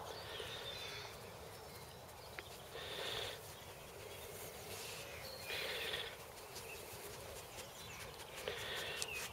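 A Weimaraner sniffing at the grass with its nose to the ground: three short, faint bouts of sniffing, the first about three seconds in. Faint birdsong underneath.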